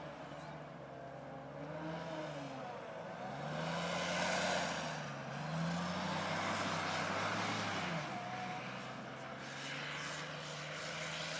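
Piranha 5 8x8 infantry fighting vehicle's diesel engine driving off, its revs rising and dropping several times, then settling into a steadier, lower drone for the last few seconds.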